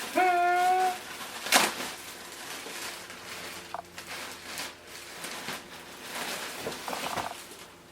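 Crinkling and rustling of plastic clothing packaging being opened, with a sharp click about one and a half seconds in. A brief held high note sounds in the first second.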